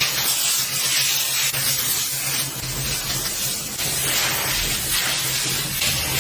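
UWANT B200 spot cleaner running with a steady hiss over a low motor hum.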